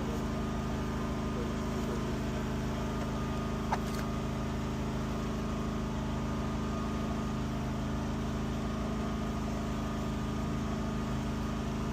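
An engine idling steadily with a low, even hum, and a single short click about four seconds in.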